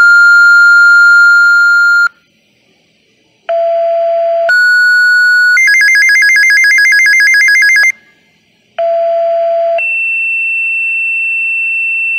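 Two-tone sequential fire-dispatch paging tones played through the Unication G5 pager's speaker as it decodes a two-tone page. First comes a steady high beep of about two seconds. Then a low tone for a second steps up to a higher tone, the pager's alert warbles rapidly between two pitches for about two seconds, and another low tone steps up to a higher tone held for about three seconds.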